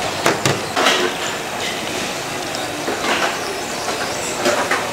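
Hawker stall kitchen: a steady background din with scattered knocks and clinks of cooking utensils.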